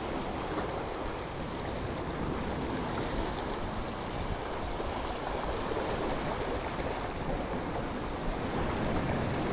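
Small waves washing against jetty rocks, with wind buffeting the microphone: a steady rush of surf and wind noise.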